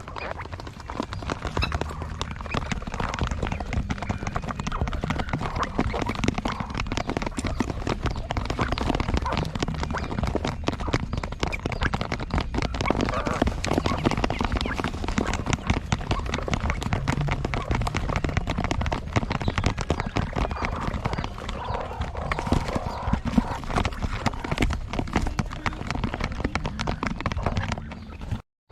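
A flock of farmed quail: a dense, continuous run of fast clicks and taps with animal noise mixed in. It cuts out briefly near the end.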